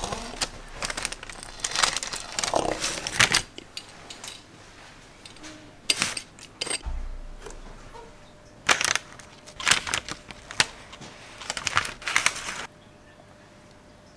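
Close-up kitchen handling sounds of food preparation: clusters of crinkling, rustling and light clinks from ingredients, packaging and utensils. There is a busy stretch at the start and another in the second half, which stops abruptly near the end.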